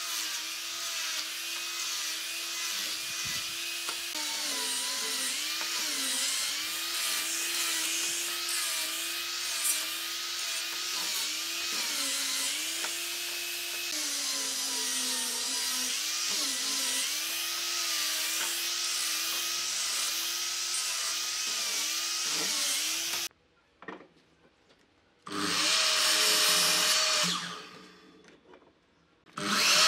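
Angle grinder fitted with a sanding disc sanding a wooden board, its motor whine dipping in pitch each time it is pressed into the wood; it cuts off suddenly about 23 seconds in. After a short pause a miter saw runs and cuts through a wooden strip, and a second cut starts near the end.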